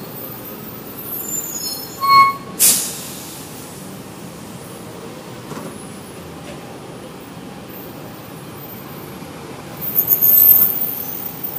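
Double-decker bus pulling up at a stop: its brakes squeal briefly about two seconds in, then air brakes release a loud hiss. The engine idles under it, and another burst of air hiss comes near the end.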